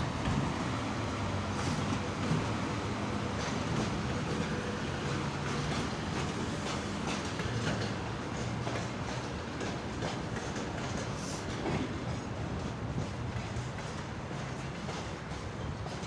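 Freight train hauled by a 2ES4K electric locomotive passing close by: a steady rail rumble with an irregular run of clacks as the wagon wheels cross the rail joints.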